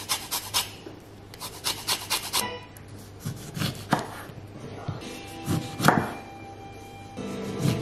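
Fresh lemon rubbed against a fine handheld grater in quick scraping strokes, then a chef's knife cutting through lemons and knocking several times on a wooden cutting board.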